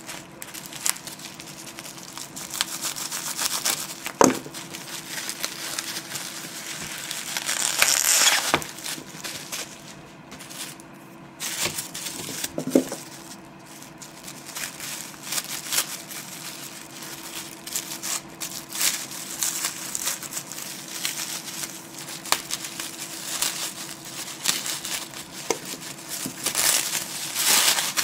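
Tissue paper and plastic wrapping crinkling and rustling as a tarot deck is unwrapped by hand. The rustling swells loudest about eight seconds in and again near the end, with two light knocks, about four and thirteen seconds in, over a faint steady hum.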